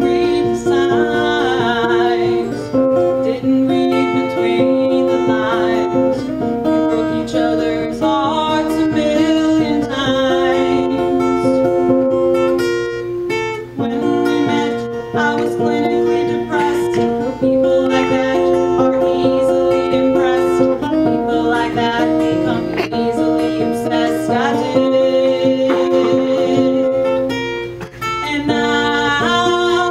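A woman singing a song live to her own acoustic guitar, strummed steadily as accompaniment.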